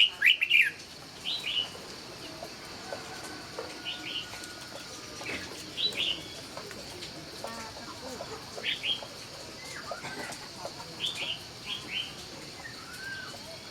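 Laughingthrush (khướu) calling in short, sharp chirps, two or three at a time every second or two, loudest at the very start, over a faint steady high hiss.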